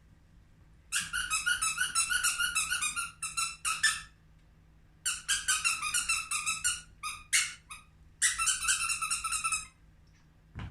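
A small dog whining in high-pitched, rapidly wavering squeals, in three long bouts with short breaks, excited. A soft knock comes near the end.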